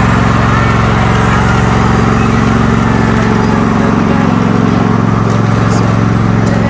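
Cub Cadet riding lawn mower's engine running steadily while mowing grass.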